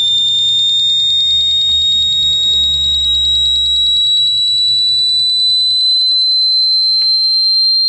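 Piezo speaker on a microcontroller prototype board emitting a single high, shrill tone whose pitch rises slowly and steadily, with a fast fluttering pulse on it: a modulated test tone.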